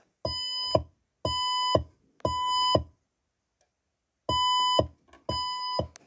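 Fire alarm evacuation tone in the temporal-three pattern, sounding between the spoken messages of a voice-evacuation system: three half-second beeps about a second apart, a pause, then the next group begins. Each beep is a steady pitch with a buzzy stack of overtones.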